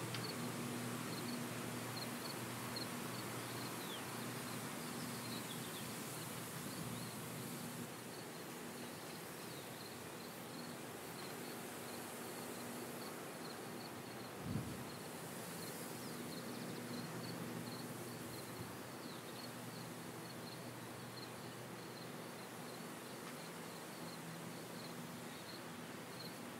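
Low, steady hum of distant combine harvesters at work in a wheat field, under an even, repeating chirping of insects. A single brief low thump comes about halfway through.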